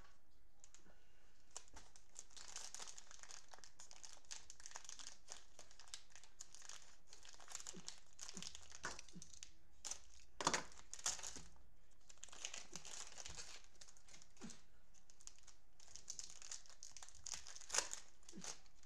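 Plastic cellophane wrappers of Prizm football card cello packs crinkling as they are handled and torn open, with a couple of louder sharp rips about halfway through and near the end.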